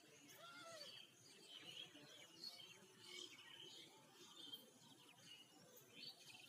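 Faint birds chirping and twittering with many short, high calls, and a single short cat meow about half a second in.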